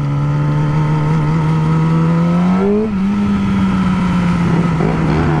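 Motorcycle engine running under way, its pitch creeping slowly upward, with a brief change in pitch about three seconds in before it settles steady again. Wind and road noise lie underneath.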